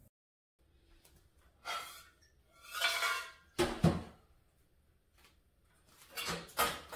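Dishes and metal kitchenware being handled, with several separate clinks and clatters a second or so apart, some ringing briefly.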